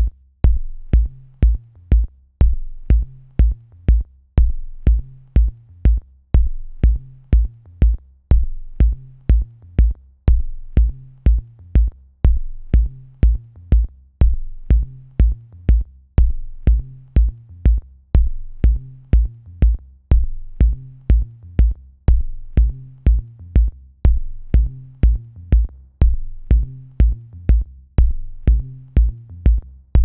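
Background electronic music with a steady drum-machine beat, about two kicks a second, over a bass line and high ticking percussion.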